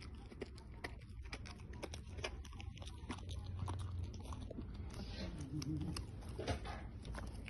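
Dog gnawing on a hard chew stick: scattered sharp crunching and clicking bites.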